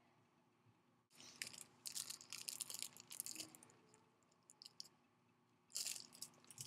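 Cellophane wrapper around a rose crinkling as it is bitten and handled, in crackly bursts starting about a second in, a few small ticks, then one more burst near the end.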